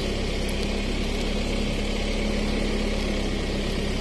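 A vehicle engine running steadily at an even speed, a continuous low hum with no changes in pitch.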